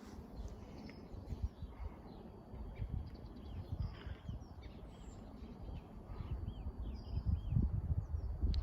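Several birds chirping and calling in short repeated notes, over a gusty low rumble of wind on the microphone.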